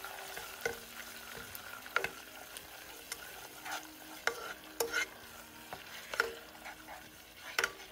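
Wooden spatula stirring and scraping around a nonstick pot of melted butter, garlic and chili sizzling over the heat, with irregular knocks of the spatula against the pot.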